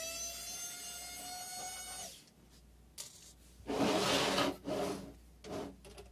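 Cordless electric precision screwdriver motor whining for about two seconds, its pitch creeping slightly upward as it backs out a Phillips screw from the router's case. Then a louder scraping rub as the case is turned on the table, and two shorter rubs near the end.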